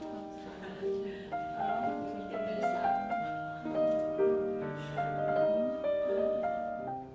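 Instrumental background music: a slow melody of held notes.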